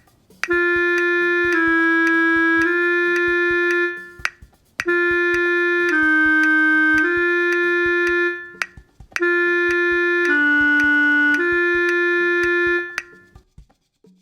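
Synthesized instrument tone from the TonalEnergy app playing three phrases of long held notes, each dipping lower in the middle before returning to the starting pitch, with faint metronome clicks underneath.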